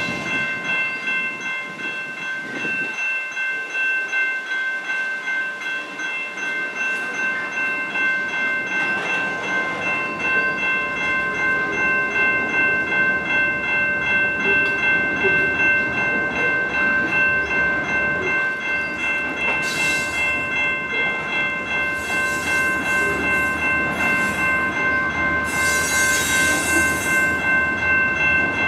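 Freight cars (covered hoppers and tank cars) rumbling and clacking past over a road level crossing, with the crossing's warning bell ringing steadily on top. A couple of short hissing rushes come from the train near the end.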